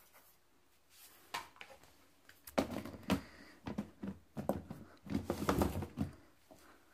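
Kitchen handling noises: a few faint clicks, then from about two and a half seconds in an irregular run of knocks and clatter.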